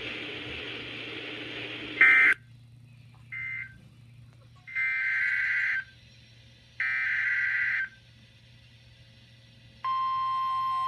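NOAA Weather Radio emergency alert signalling: after a stretch of radio hiss come four buzzy digital data bursts, two short and then two about a second long, the SAME codes that frame a warning. Near the end the steady weather radio alert tone starts and holds.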